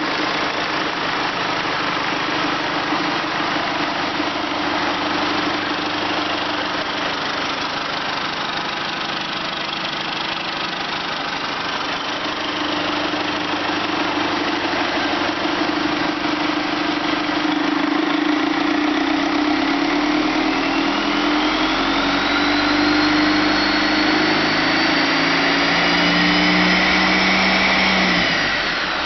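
Detroit Diesel Series 50 inline four-cylinder turbo diesel running, idling steadily at first. From about two-thirds in it is brought up in speed gradually, with a rising turbocharger whistle, then drops back toward idle near the end.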